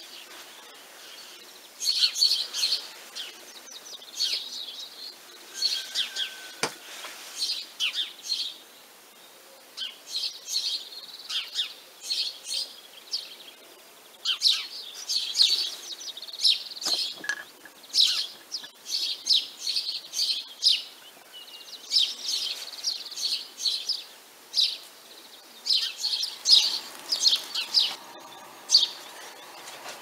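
House sparrows chirping: clusters of short, high cheeps that repeat every second or two, with brief pauses between them.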